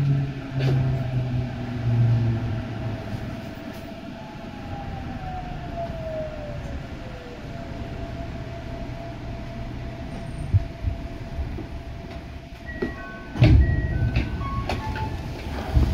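Eidan 8000 series electric train running, heard from on board. Its motor whine falls in pitch at the start and another tone glides down a few seconds later over a steady rumble. Near the end come a few short stepped tones and sharp rail-joint thumps, the loudest about three-quarters of the way through.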